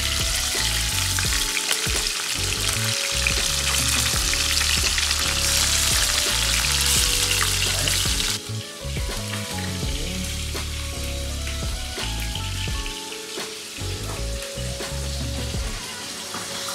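Barracuda pieces sizzling as they fry in hot oil in a stainless steel pan, with a spoon stirring among them. The sizzle drops away abruptly about eight seconds in. Background music with a steady bass beat plays under it.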